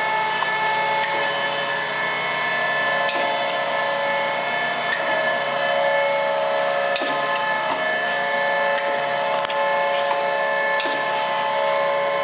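Nicco NSG-6H automatic surface grinder running: a steady whine of several held tones over a constant hiss. Sharp clicks come at irregular moments.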